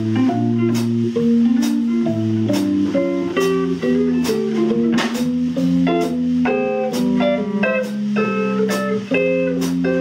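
Jazz trio of electric guitar, electric keyboard and drum kit playing a slow ballad: guitar and keyboard notes and chords over drums marking a steady beat.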